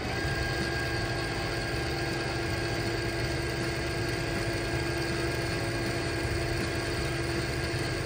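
Electric linear actuator's motor and gearbox running steadily as it drives its rod out into the gate latch, locking the gate: a steady mechanical whine with no change in pitch.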